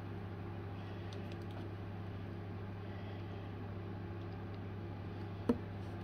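A steady low hum over quiet room tone, with a few faint taps as a plastic hand mirror is handled, and one sharp click near the end.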